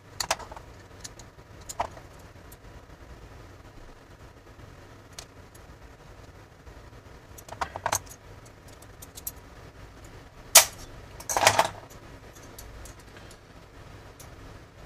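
Small metal clicks and clinks from handling an antique flintlock-era pistol's lock with steel hand tools: scattered light taps, then a sharp click a little past halfway and a short metallic clatter right after.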